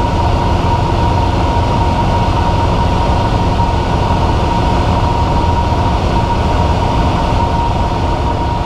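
Piper Cherokee 140's four-cylinder Lycoming engine and propeller droning steadily in flight, heard inside the cabin, with a thin steady high tone running through the noise.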